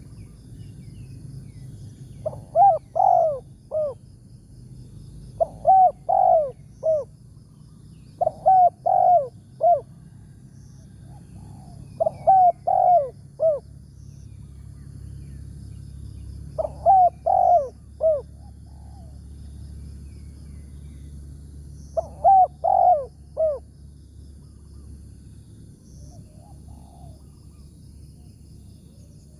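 Spotted dove cooing: six phrases of three or four coos each, a few seconds apart, with a fainter phrase near the end, over a faint steady low hum.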